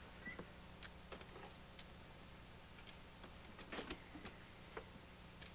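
Faint, irregular clicks and light knocks of a cabinet and a gun being handled, with a small cluster a little before four seconds in, over a steady low hum.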